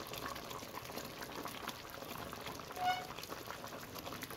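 Chicken curry boiling hard in a pot, a steady bubbling with dense small pops. A brief high-pitched tone sounds once, about three seconds in.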